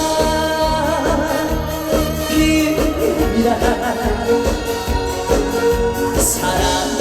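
Trot song's instrumental interlude: band or backing-track melody over a steady beat, with no lead vocal.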